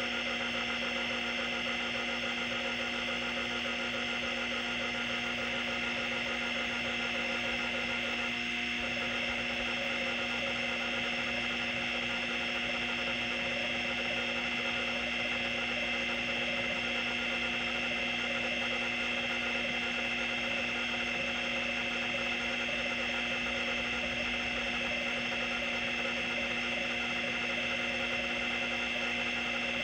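Seagate ST-212 MFM hard drive running with its lid off: the platter spins with a steady hum and whine while the stepper-driven head arm seeks back and forth continuously. The drive is damaged and can no longer store data, but it still seeks.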